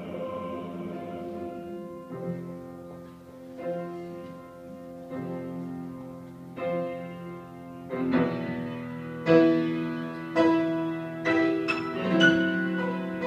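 Piano playing an interlude between the choir's verses: chords struck about once a second and left to ring, soft at first and getting clearly louder about two-thirds of the way through.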